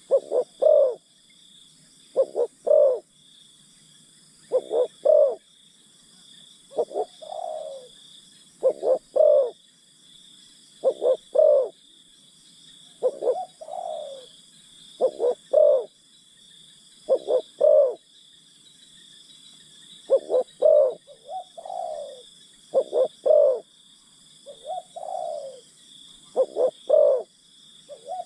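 Spotted doves cooing: short repeated coo phrases, one about every two seconds, over a steady high-pitched drone of insects.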